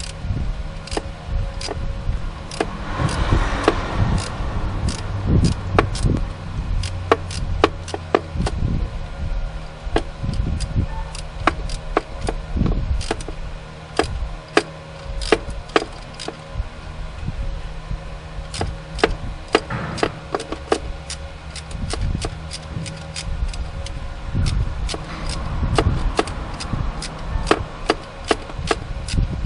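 Irregular metallic clicks, taps and scraping as hands and hand tools work on bolts and fittings around a Honda Civic's starter motor, over a steady low hum. Now and then a longer stretch of rubbing and scraping.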